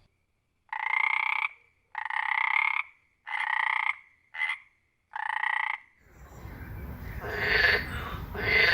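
Frog calling: five separate croaking calls about a second apart, each under a second long, the fourth one short, with silence between. About six seconds in, a louder recording takes over, with repeated calls over a steady rushing background.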